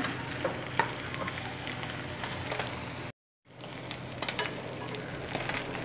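Omelette frying in a tri-ply stainless steel fry pan: a steady sizzle with a few light clicks of a wooden spatula against the pan. The sound cuts out for a moment just past halfway, then the sizzle resumes.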